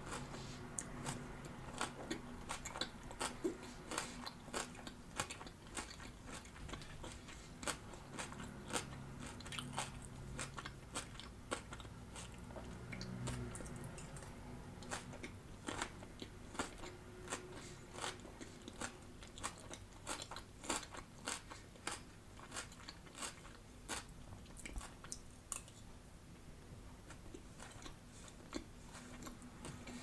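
Close-miked chewing of crunchy raw salad, iceberg lettuce and red cabbage, with many sharp, irregular crunches.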